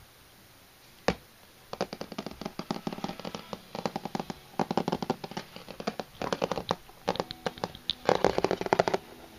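Terrier-cross puppy eating from a plate: quick, irregular wet smacking and licking clicks, several a second, after one sharper click about a second in.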